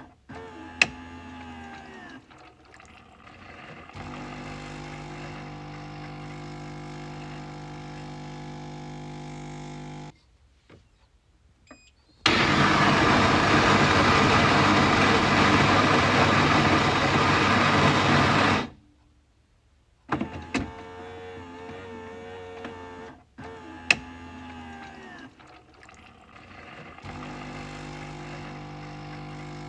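Coffee machine running through its cycle: a steady motor hum with a sharp click near the start, then a brief stop. About twelve seconds in comes a loud, harsh rushing noise lasting some six seconds that cuts off sharply, and the hum returns with another click.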